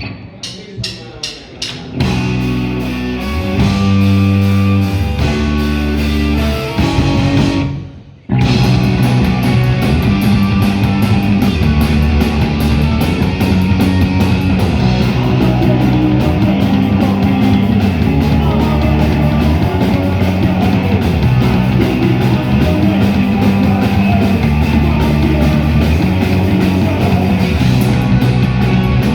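Live rock band starting a song: a few quick clicks, then a guitar and bass riff in separate notes, a brief stop about eight seconds in, and then the full band playing hard with drums and cymbals.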